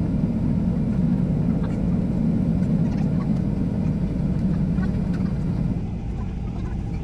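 Cabin noise of a Boeing 737-800 in flight, heard from a window seat by the wing: a steady low rumble of its CFM56 engines and rushing air, easing slightly about six seconds in.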